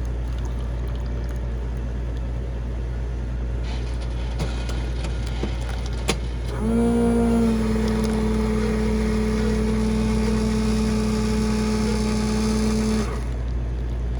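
A motor running with a steady low hum. About halfway through, a loud low steady tone starts, holds for about six seconds, then cuts off.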